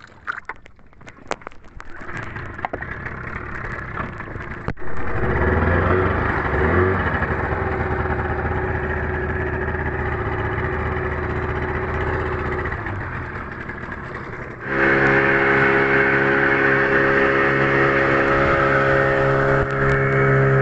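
Small boat engine running, jumping louder about five seconds in and opening up to a louder, steady pitch about fifteen seconds in as the seaweed-laden boat gets under way. A few knocks come first.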